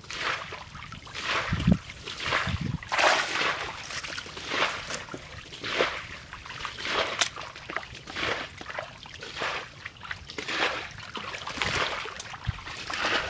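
Hands squelching and splashing through wet mud and shallow water in a run of short sloshes, about one a second, while groping in the mud for fish.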